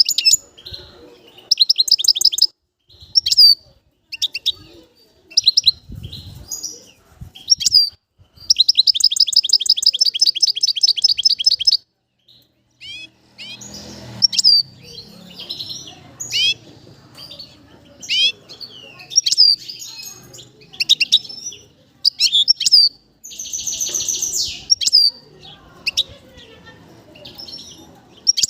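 European goldfinch singing: a run of twittering phrases of quick rising and falling notes, broken by two long rapid buzzy trills, one about eight seconds in and another about twenty-three seconds in.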